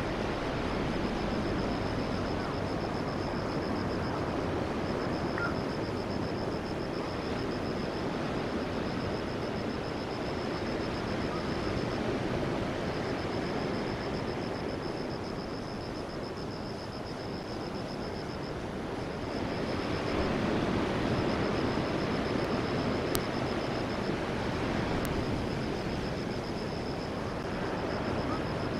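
Surf washing onto the beach: a steady rush of waves that swells louder about two-thirds of the way through. A thin, high, even trill runs over it, breaking off briefly a few times.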